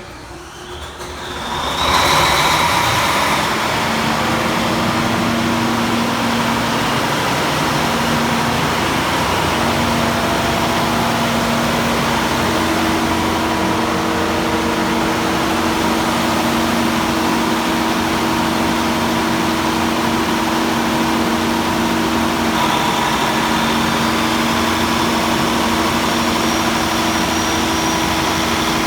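Volvo Penta TAD1641GE diesel generator set running: the sound rises over the first two seconds, then holds loud and steady with a constant engine hum.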